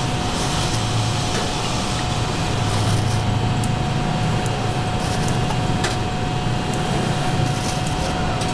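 Steady mechanical hum and background noise, with a constant thin high tone and a few light clicks.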